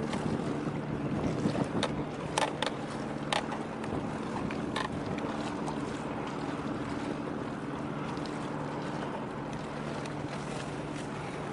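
Marine engine droning steadily over wind and water noise, with a few sharp clicks about two to five seconds in.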